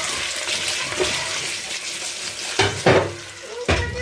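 Taro-leaf rolls shallow-frying in oil in a kadai, a steady sizzle. Near the end come a few sharp clatters against the pan.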